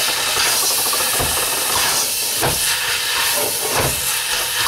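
Stir fry of spinach, kale and cabbage sizzling in hot oil in a stainless steel pot, a steady hiss, while a utensil stirs and tosses the greens with a dull knock about every second and a quarter.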